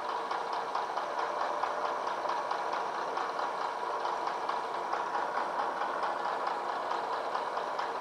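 Bridgeport vertical milling machine taking a hand-fed pass with an end mill along an 85-3-5 bronze casting: a steady running and cutting sound with a regular ticking about six times a second. The machinist blames a bad end mill for the rough finish of these cuts.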